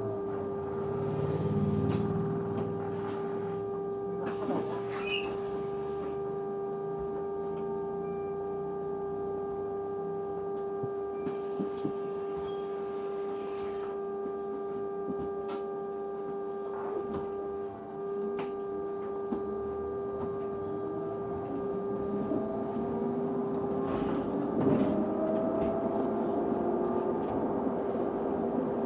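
A bus heard from inside, carrying a steady humming tone that holds one constant pitch with a few fainter overtones while the drive noise rises and falls in pitch beneath it, with occasional rattles and clicks.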